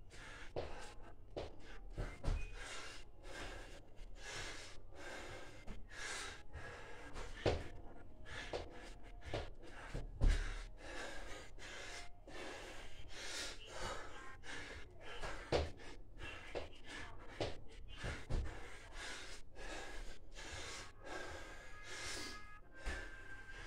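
A man panting and gasping in quick, repeated breaths during a set of Navy SEAL burpees, with a few thuds as he lands on the floor.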